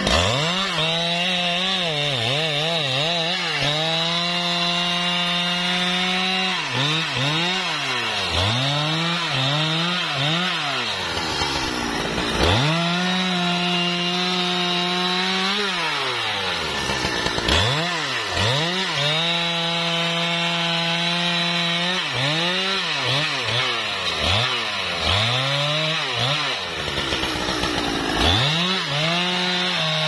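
Husqvarna 395 XP two-stroke chainsaw revved again and again: the engine climbs to full throttle, holds there for a few seconds at a time, and drops back toward idle in between. It runs at full throttle while cutting into a trembesi trunk.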